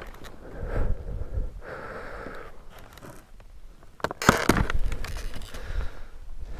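A motorcycle ridden slowly, its engine a low rumble under uneven wind rush on the microphone. The loudest, a sharp gust of rushing air, comes about four seconds in.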